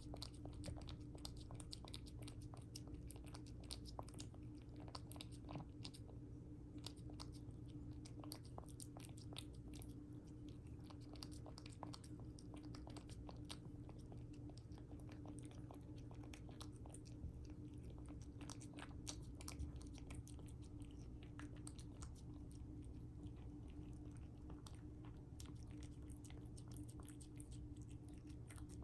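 A cat eating its breakfast: faint, irregular chewing and lip-smacking clicks, over a steady low hum.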